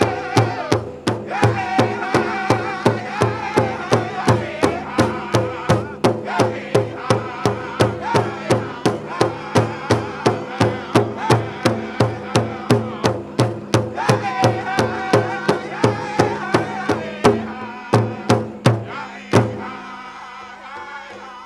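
Powwow drum group singing a prairie chicken dance song over a large shared drum struck in a steady beat, about three strokes a second. Near the end the beat gives way to a few heavy, spaced strokes and the drum stops.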